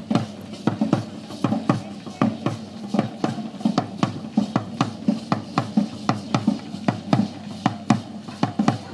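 Matachines dance drums beating a steady, fast rhythm of about three beats a second, each beat a deep thud that drops in pitch.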